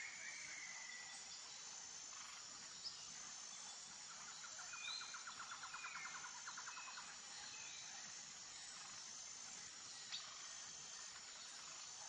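Faint outdoor ambience of insects and birds: a steady high insect hum with a few short bird chirps, and a fast trill of about seven pulses a second from about four to seven seconds in. Two brief clicks fall about three and ten seconds in.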